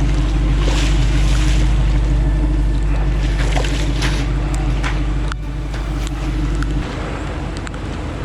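A vehicle engine running steadily with a deep hum, its low note dropping in two steps about five and seven seconds in, with wind gusting over the microphone.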